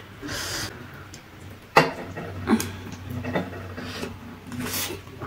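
Close-miked eating sounds of spicy ramen noodles: chewing and a breathy slurp near the start. About two seconds in comes a sharp click of chopsticks against the ceramic plate, the loudest sound, followed by a few lighter clicks.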